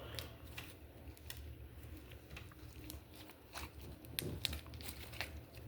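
Wax-coated slime being handled, giving faint scattered crackles and clicks as its hardened coating cracks.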